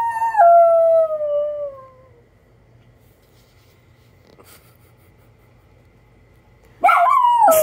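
Miniature schnauzer howling: a long call slides down in pitch and dies away about two seconds in. A second howl starts near the end, leaping up and then sliding down.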